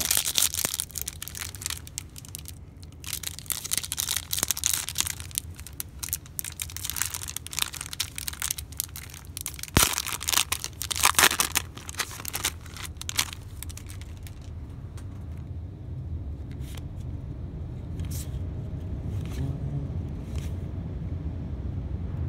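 Foil wrapper of a football card pack being torn open and crinkled by hand for the first dozen or so seconds, with one sharp snap near the middle. After that there are only a few light ticks as the cards are handled, over a steady low rumble that grows a little louder near the end.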